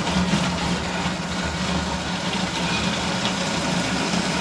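Water running from a hose into a plastic water container, an even hiss over a steady low hum.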